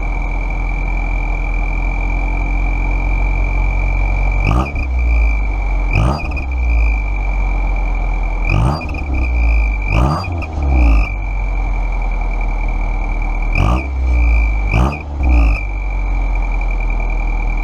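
1999 Honda Civic's four-cylinder engine running with a turbo whistle jammed into its tailpipe, giving a loud, steady high whistle over the exhaust. About eight quick blips of the throttle each flare the whistle briefly. The whistle fills the whole diameter of the pipe and chokes the exhaust with back pressure, and the engine does not run right with it.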